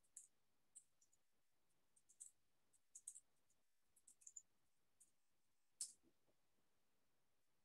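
Near silence: room tone with faint, irregular small clicks, the sharpest a little after halfway.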